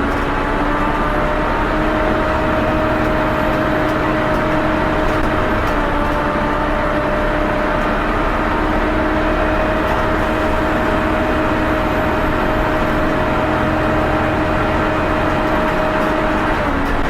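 Volvo B7TL bus's engine cooling fan running with a loud, steady, hoover-like whine over the engine's rumble. The pitch dips briefly at the start and again near the end.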